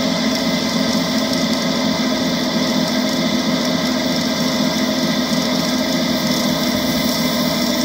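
Ride-on miniature Western diesel-outline locomotive's power unit running steadily at low speed, a continuous engine drone that holds its pitch.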